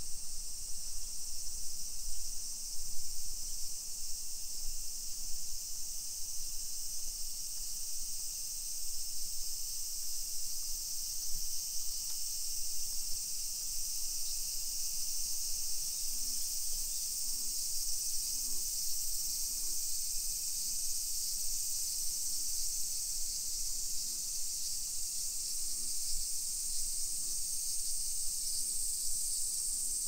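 Chorus of summer cicadas in the surrounding trees, a steady, high-pitched shrill drone that holds unbroken throughout.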